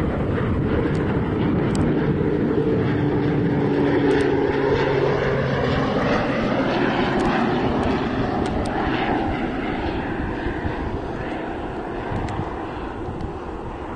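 Air Tractor turboprop air tanker on amphibious floats flying past low on approach: a steady propeller and engine drone, loudest about four seconds in, that drops in pitch as the plane passes and then fades away.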